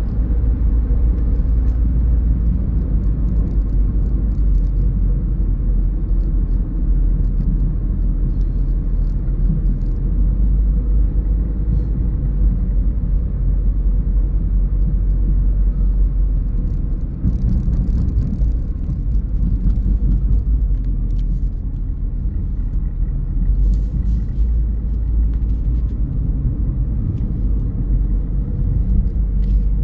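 Steady low rumble of a car driving along a road, with road and engine noise carrying on without a break.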